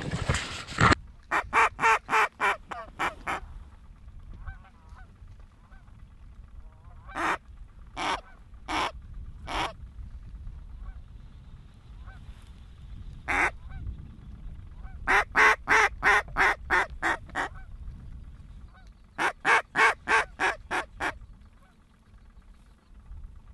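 Speckle-belly (greater white-fronted) goose calling: several runs of short, quick, high notes at about four a second, with pauses of a few seconds between runs.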